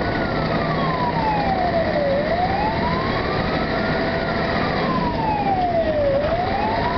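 Fire engine siren wailing, its pitch climbing for about two seconds and falling for about two, over the truck's engine and road noise, heard from inside the cab.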